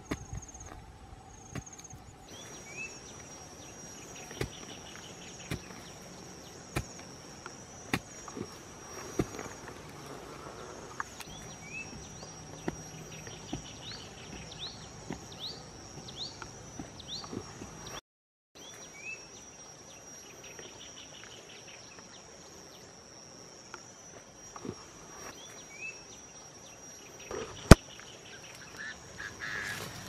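Steady high-pitched insect drone over irregular dull knocks of a wooden stick digging into soil, with a few short chirps. One sharp click near the end is the loudest sound.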